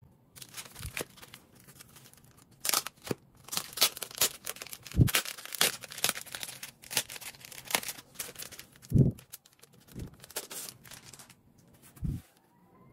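Clear plastic LP sleeve crinkling and rustling in a quick run of sharp crackles as a record jacket is handled and slid out of it. Three dull thumps come about five, nine and twelve seconds in.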